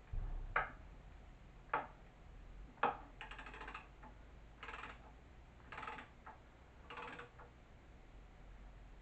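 Hand screwdriver driving a screw into wood: three sharp clicks about a second apart, then four short rasping strokes with fast clicking, a turn of the tool about once a second.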